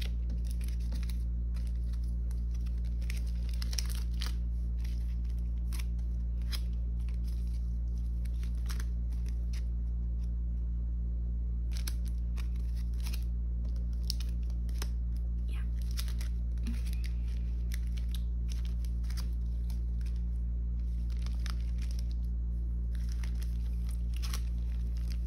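Clear plastic photocard sleeves and binder pocket pages rustling and crinkling as cards are shuffled and slid into the pockets: scattered short crackles and clicks, with a lull about ten seconds in. A steady low hum runs underneath and is the loudest sound.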